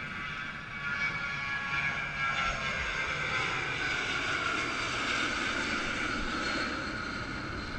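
A passing engine drone, steady with several tones that slowly fall in pitch as it goes by, fading a little toward the end.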